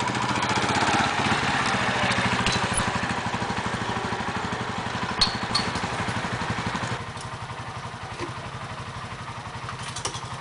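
Small motorcycle engine running at low revs, with rapid even firing pulses. It drops in level about seven seconds in, and two short clicks come shortly before.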